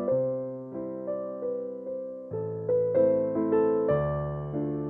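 Background music: a soft keyboard piece of struck piano chords and melody notes, each fading away before the next.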